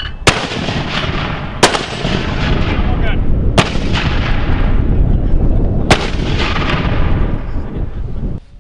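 Mortar fire on a live-fire range: four sharp reports over about six seconds, with a continuous rolling rumble between them that dies away near the end.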